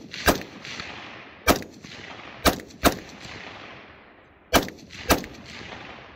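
Six shots from a Ruger AR-556 MPR semi-automatic rifle, fired at an uneven pace over about five seconds, two of them close together. Each shot is followed by a long echo that dies away over about a second.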